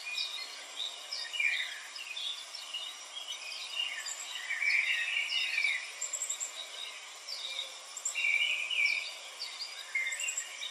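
Birds chirping: many short high chirps, whistles and trills overlapping, some notes sliding downward in pitch.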